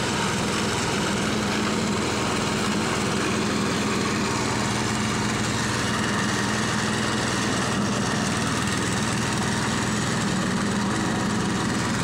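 Small engine of a walk-behind double-drum roller running steadily as it rolls over and compacts loose soil fill.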